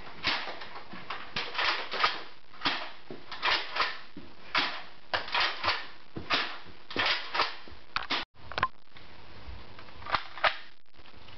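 An irregular series of sharp clicks and clacks, a few each second, cutting out briefly about eight seconds in.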